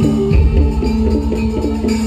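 Javanese gamelan music accompanying a jaran kepang dance: drums over short repeating notes from metal pitched percussion, with a deep low boom about a third of a second in.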